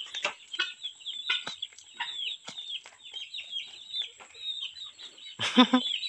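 Turkeys and other fowl at a feeding bowl of rice: a run of many short, high chirping calls mixed with sharp pecking clicks, and a brief louder, lower call near the end.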